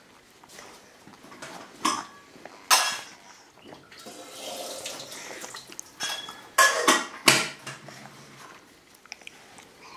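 Dishes and utensils being handled at a kitchen worktop: a few sharp clinks and knocks, with a stretch of softer clattering noise in between.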